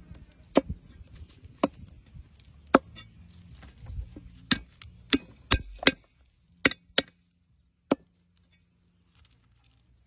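Cleaver chopping green stalks on a wooden tree-stump block: about ten sharp chops, irregularly spaced with a quick run of four in the middle, stopping about eight seconds in.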